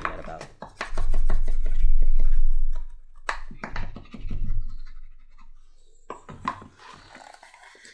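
Edge of a leather holster being slicked: a small rod and then a turned wooden slicker rubbed hard along the edge, giving repeated scratchy rubbing strokes. A heavy low rumble runs under the strokes about one to three seconds in.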